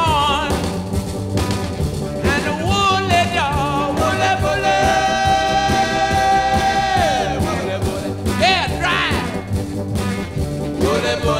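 Background music: a sung oldies-style song over a band with a steady beat, the singer holding one long note for a few seconds in the middle.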